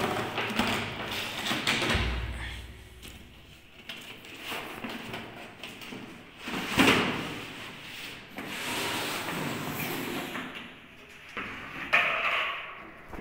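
Cardboard toy box with a plastic window being handled and opened: rubbing, scraping and sliding of cardboard and plastic, with a sharp knock about seven seconds in and another near the end.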